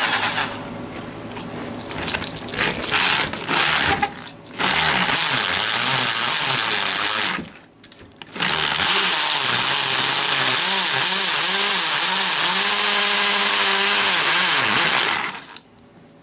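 Power drill driving a 2-inch Milwaukee hole saw, its teeth worn off, grinding into the hardened lining of a bucket foundry. It runs in bursts with two short stops, then runs steadily for about seven seconds, the motor pitch wavering under load, and stops near the end.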